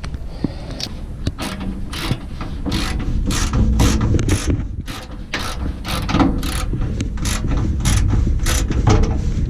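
A metal hand tool being worked in quick repeated clicking strokes, about three a second, over a steady low rumble.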